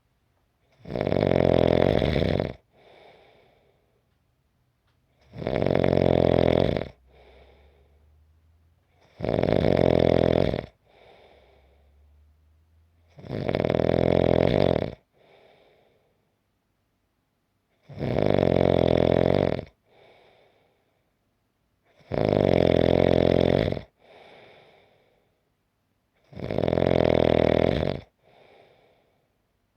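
Steady snoring: seven loud snores at an even pace of about one every four seconds, each followed by a much softer breath.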